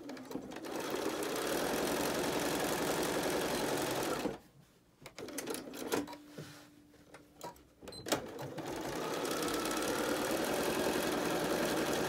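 Bernina B 450 computerized sewing machine stitching a seam. It runs steadily for about four seconds and stops. A few sharp clicks and a short hum fall in the pause, then it stitches steadily again from about eight seconds in.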